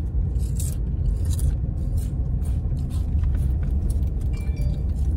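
Steady low rumble inside a car's cabin, with a few faint scraping sounds now and then.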